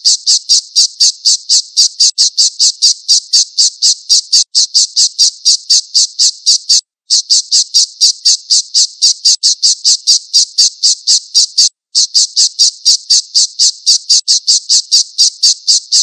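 Alap-alap (a small falcon of the kestrel kind) calling a rapid, high-pitched run of repeated sharp 'kee' notes, about three to four a second, in long strings broken by brief pauses.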